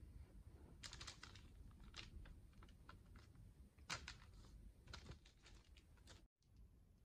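Faint, scattered soft clicks and rustles of hands handling a stack of thin crepes on parchment paper, the sharpest about four seconds in.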